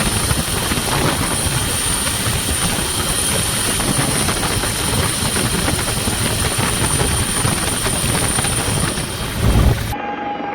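Helicopter flying overhead, its rotor and engine noise loud and steady, cutting off abruptly near the end.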